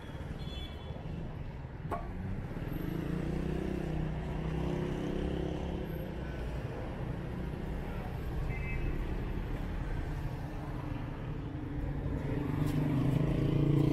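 Heavy, slow-moving street traffic: car engines running steadily close by, growing louder near the end.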